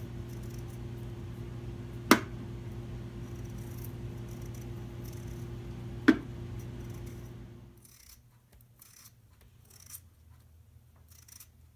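Potatoes being peeled and then sliced by hand with a paring knife: faint scraping and cutting over a steady low hum, with two sharp clicks about four seconds apart as the loudest sounds. The hum stops about two-thirds of the way through, leaving only faint, sparse knife clicks.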